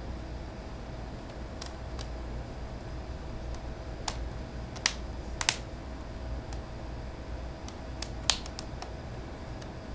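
A handful of scattered sharp plastic clicks and taps as a tablet's plastic housing and bezel are handled and pressed back into alignment, over a low steady background hum.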